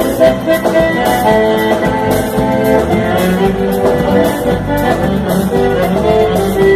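Gaúcho vaneira played by a band without singing, the accordion (gaita) carrying the melody over a steady dance beat.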